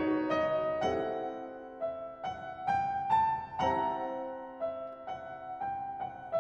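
Background music: a piano playing a melody, with single notes struck about twice a second and each fading away.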